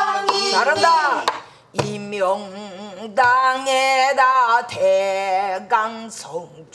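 A woman singing pansori in a full, wavering voice with wide vibrato, accompanied by a few sharp strokes on a buk barrel drum. The singing breaks off briefly about a second and a half in.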